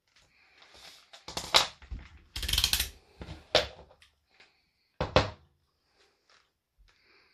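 Handling clatter: multimeter test leads and a plastic BMW N54 boost-control solenoid with its vacuum hose being put down and picked up on a wooden floor. There is a run of knocks and a short rattle in the first few seconds, then two sharp knocks about five seconds in.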